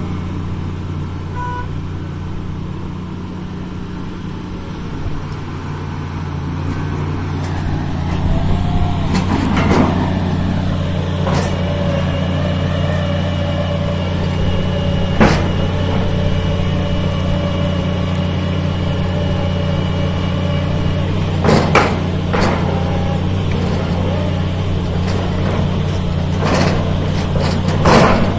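Diesel engine of a MAIT rotary piling rig running steadily, working harder and growing louder about a third of the way in as the auger bores into the ground. Several sharp metallic clanks from the drilling gear come through over the drone.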